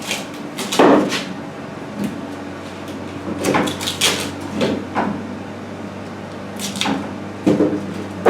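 A series of short, sharp knocks and clunks at uneven spacing, roughly one a second, over a steady low machine hum.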